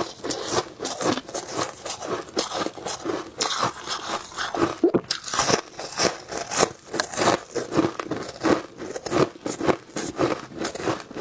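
Shaved ice being crunched and chewed close to a clip-on microphone: a dense, irregular run of crisp crunches.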